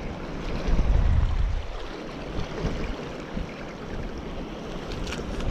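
Wind buffeting the microphone in gusts, over the steady wash of sea surf on a rocky shore.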